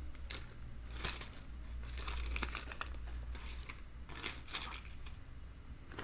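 Toy packaging crinkling and rustling in short, irregular bursts as it is handled.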